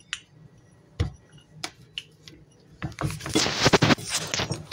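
A few sharp knocks and clicks of things being handled, the loudest about a second in. From about three seconds in comes a loud stretch of rustling and clattering.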